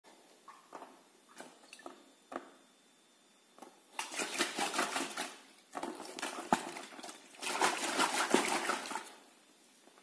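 Handling noise from a water-filled beach ball being brought to and pushed into the open drum of a front-loading washing machine, with water sloshing inside the ball. There are a few light knocks at first, then two longer rushes of sloshing and handling noise about four and seven and a half seconds in, with a sharp click between them.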